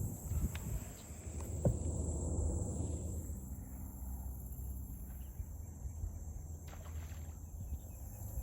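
Outdoor ambience on open water: a low steady rumble with a constant high-pitched insect-like hum above it, and a single sharp knock about a second and a half in.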